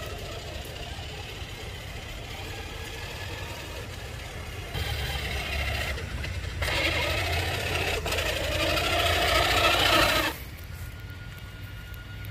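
RC truck's motor and gears whining under throttle, louder for about three seconds in the second half and cutting back suddenly near the end.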